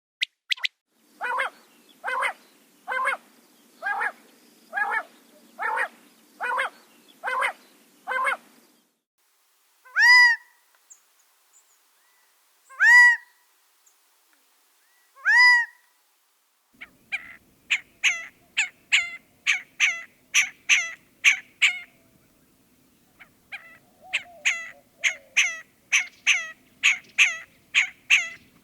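Quail calling in three separate recordings. First comes a steady series of about nine calls, under a low background hum. Then three loud calls that rise and fall in pitch, a couple of seconds apart. Then quick runs of short calls, about two a second, in two bouts.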